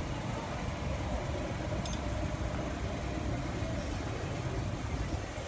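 Steady low rumble of street background noise, with a brief high click about two seconds in.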